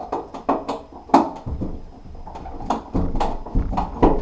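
A rapid string of irregular clicks and knocks as a screwdriver loosens the screws on a shower door's trim and the trim is handled.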